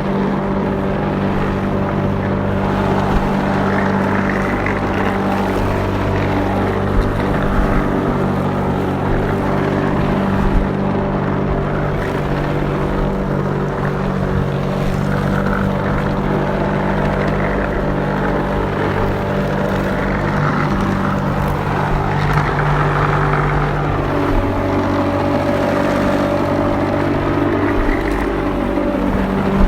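Lawnmower engine running steadily while mowing grass. Its note wavers slightly near the end.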